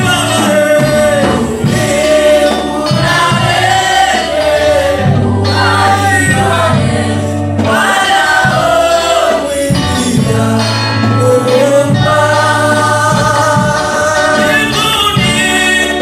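Gospel praise-and-worship singing by a group of women's voices, backed by electric guitar and held low bass notes.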